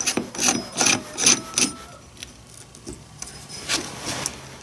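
Saw chain clinking and scraping against the steel guide bar as it is worked by hand into the bar groove and around the drive sprocket. There is a quick run of metallic clinks in the first two seconds, then softer rubbing, then a few more clinks near the end.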